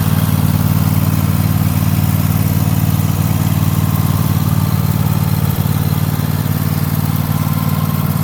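Cub Cadet XT2 riding mower's 24 hp Kohler V-twin engine running steadily at an even speed.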